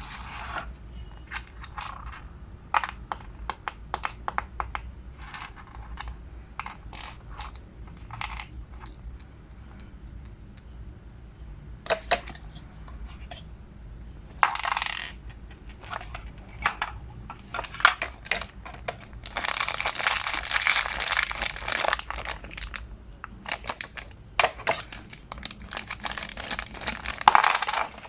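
Blind-box packaging being handled: a run of small sharp clicks and taps from hard plastic and cardboard, then two longer stretches of rustling as a wrapper is torn and crinkled, the first about two-thirds of the way in and the second near the end.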